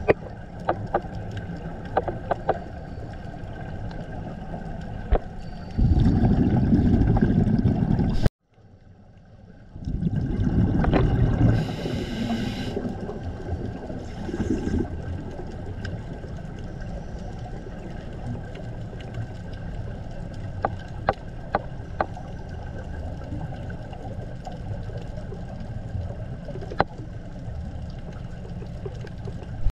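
Underwater sound through a camera housing: a steady low rumble with scattered sharp clicks. Twice, around 6 and 10 seconds in, a loud low rush of a scuba diver's exhaled regulator bubbles rises over it, the first cutting off abruptly.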